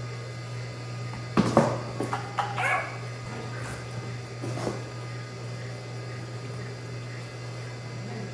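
A dog barking several times in quick succession about one and a half seconds in, then once more in the middle, over a steady low hum.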